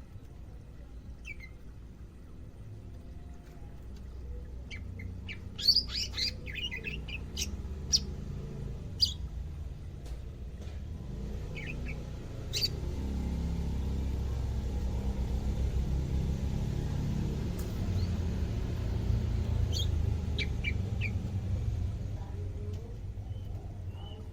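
Cucak ijo (greater green leafbird) giving short, sharp chirps, a quick cluster about six seconds in and single notes scattered later: a newly kept bird on its second day beginning to call. A steady low rumble runs underneath and grows louder through the middle.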